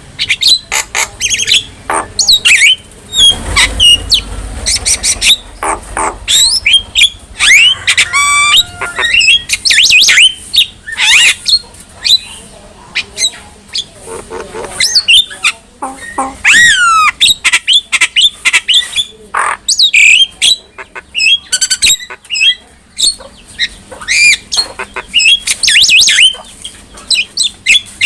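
Javan myna (jalak kebo) singing a loud, continuous medley of harsh squawks, clicks and whistles, with a fast rattling phrase about eight seconds in and whistled downward glides about sixteen seconds in.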